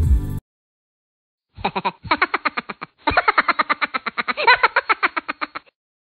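Music cuts off, then after about a second of silence comes a rapid string of springy, pitched boing-type sound-effect blips, about ten a second. They play in three runs, the last and longest lasting about two and a half seconds.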